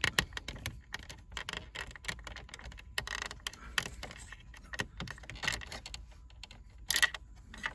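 Irregular small plastic clicks and rattles as the shifter backlight bulb's socket is twisted out of the shifter bezel and handled, with a few louder clicks near the middle and the end.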